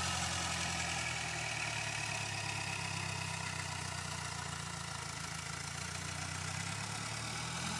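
Small red farm tractor's engine running at a steady, even speed while it pulls a tillage implement.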